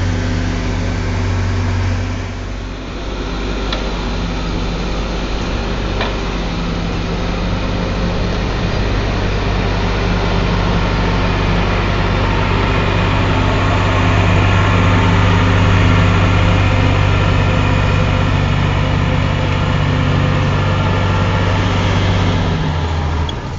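Crawler bulldozer's diesel engine running steadily under load as the dozer pushes soil, a loud low drone that dips briefly about two and a half seconds in.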